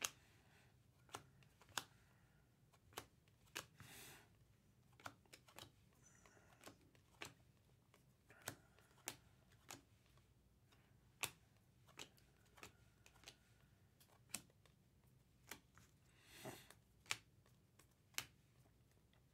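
Faint handling of baseball cards: irregular sharp clicks about every half second to a second as cards are flicked and slid against each other, with a brief rustle about four seconds in and another near the end.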